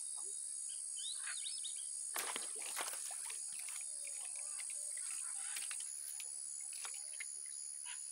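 Lakeside ambience: a steady high-pitched insect drone, with a few short bird chirps about a second in and a handful of sharp clicks around two to three seconds in.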